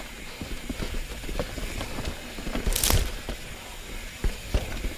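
Mountain bike riding along a dirt trail: steady tyre and trail noise with frequent irregular knocks and rattles from the bike, and a loud brief rush about three seconds in.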